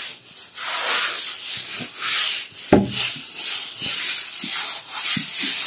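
Stiff-bristled broom scrubbing a wet, soapy rough cement floor: repeated scraping strokes, a little more than one a second. A single sharp knock about three seconds in.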